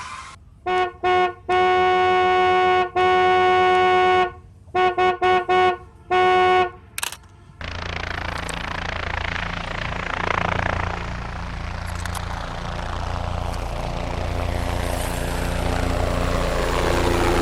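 Electronic toy-vehicle horn sounding in a series of short and long beeps, then a steady engine-like rumbling sound effect from about halfway through.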